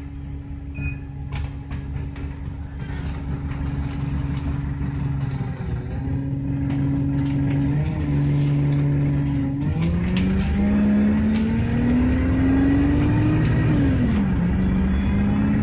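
Alexander Dennis Enviro200 XLB bus engine running at a steady note, then pulling away: the pitch climbs with several gear changes, the clearest one near the end, and it gets louder as the bus accelerates.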